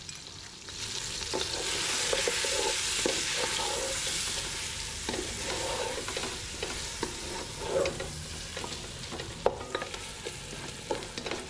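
Chicken thighs with chopped onion and garlic sizzling in oil in a pot while being sautéed, a wooden spatula stirring and scraping against the pot with scattered knocks. The sizzle swells about a second in.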